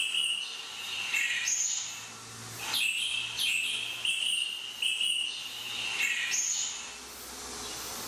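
High chirping animal calls, repeated about every one to one and a half seconds, each lasting about a second, over a faint low hum.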